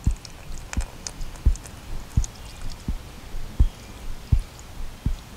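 Water trickling from a plastic bottle into a concrete block cell, with small splashes and drips over the first couple of seconds that then thin out. Under it, a steady low thump comes about every three-quarters of a second.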